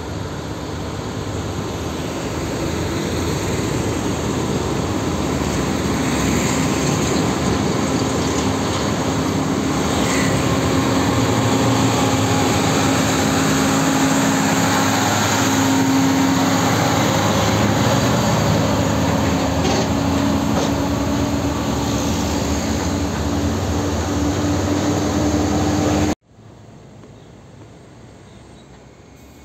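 Heavy FAW truck's diesel engine running loudly at a steady pitch as the truck approaches and passes close by, mixed with tyre and road noise. The sound cuts off abruptly about 26 seconds in, leaving quieter distant traffic.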